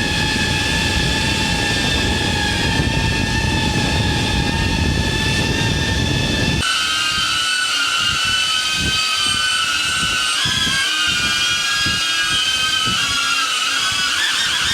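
DJI quadcopter drone propellers whining in flight, a stack of steady high-pitched tones. About two-thirds of the way through it cuts to another recording in which the whine wavers in pitch as the drone manoeuvres, with gusty wind buffeting on the microphone.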